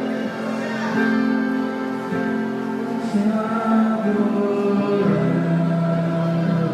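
Gospel worship song: singing over instrumental backing, with long held notes.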